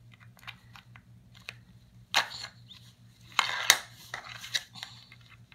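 Hard plastic toy figures clacking and knocking against each other and a surface in play: scattered sharp clicks, with louder clatters about two seconds and three and a half seconds in.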